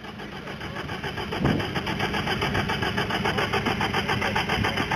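Off-road vehicle engine running with an even, rapid firing pulse. It gets louder about a second and a half in.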